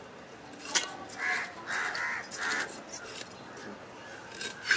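Fish scales being scraped off against a boti blade: a few sharp scrapes, the loudest just under a second in and near the end. Between them a crow caws four times in quick succession.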